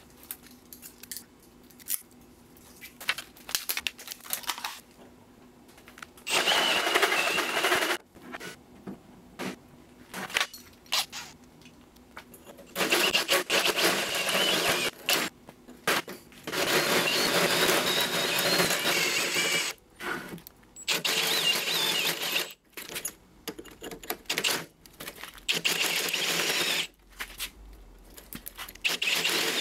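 Milwaukee cordless drill spinning a hole saw into the end of a steel tubular axle, cutting out the old sleeve. It runs in repeated loud bursts of a few seconds with short pauses between, a grinding metal-cutting noise with a high ringing tone at times. The first few seconds hold only small clicks.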